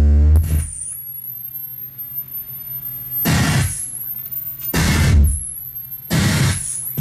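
Live electronic noise music from synthesizers and effects. A loud low droning tone cuts off about half a second in, leaving a thin, wavering high whistle. Three harsh bursts of noise come about a second and a half apart, starting about three seconds in.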